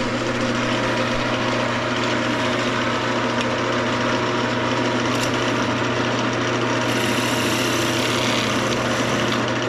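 Wood lathe running at a steady speed, its motor giving a constant hum. A higher hiss joins from about seven seconds in.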